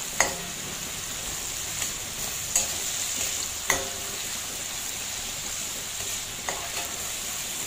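Mushrooms and bell pepper sizzling steadily in a hot frying pan as they are stirred, with a utensil knocking against the pan about five times.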